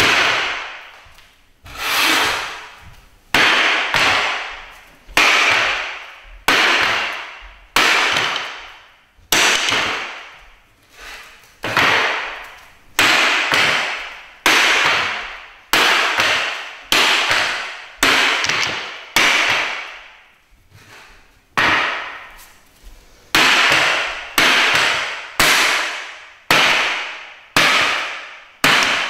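A hatchet chopping into a wooden chair, one blow every second or so, each hit a sharp crack that rings out briefly in the room.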